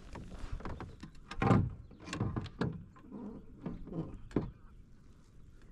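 A landing net and fishing gear being handled aboard a kayak: a string of irregular knocks and scrapes, the loudest about a second and a half in.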